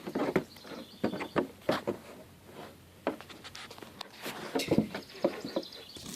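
Farm animal noises: a series of short, irregular sounds and clicks.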